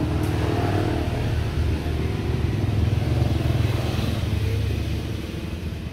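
Motorbike engine running close by as it passes in the street: a steady low drone that eases off near the end.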